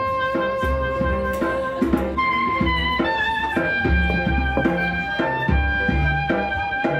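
Background music with a steady beat, a jazzy tune of held reed or brass notes over a bass line.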